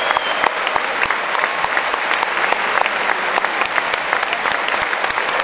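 Large crowd applauding steadily, many hands clapping together.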